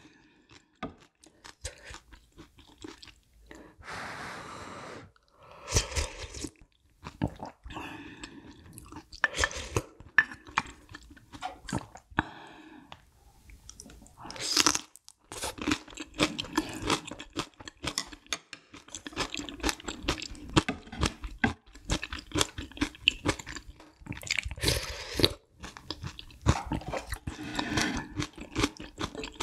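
Close-miked eating: a person crunching and chewing whole green chili kimchi peppers, with a few longer slurps of noodle soup from a spoon, the first about four seconds in and another about halfway.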